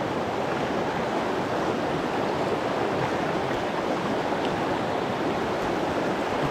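Mountain trout stream rushing steadily.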